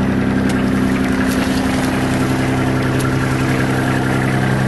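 Hitachi EX15 mini excavator's diesel engine idling steadily, freshly cold-started after weeks standing.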